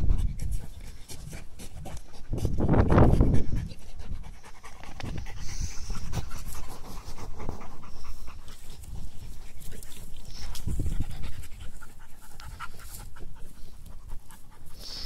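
A dog panting, quick rough breaths through the open mouth, with a louder low rumbling noise about three seconds in.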